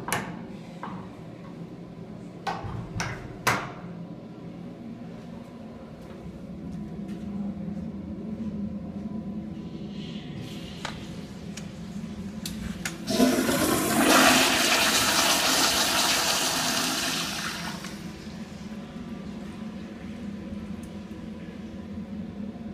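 A few sharp metal clicks from a stall-door latch, then a commercial flushometer toilet flushing: a sudden loud rush of water about halfway through that lasts about five seconds and fades away.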